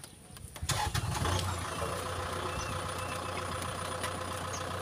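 A tractor engine comes in sharply about a second in, then runs steadily with a low, even hum.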